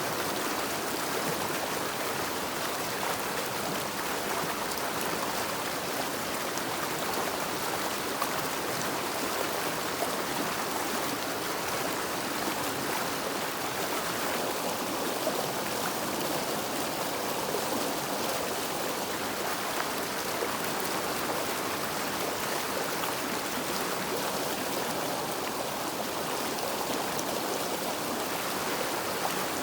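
River water flowing steadily over rocks, a continuous rushing of a stream.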